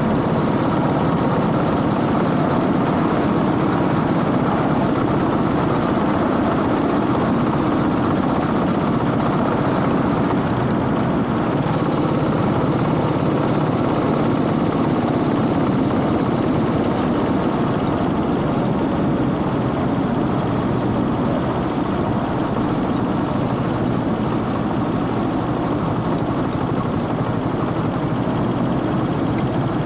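Motorcycle engine running at a steady pitch, with intake noise and drive-chain noise.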